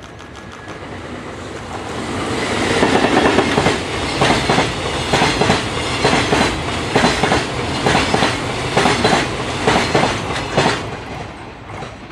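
Express container freight train hauled by an EF65 electric locomotive passing close by. The sound builds over the first few seconds as the locomotive arrives, then the container wagons' wheels clatter over the rail joints in a regular clickety-clack, easing near the end as the last wagons pass.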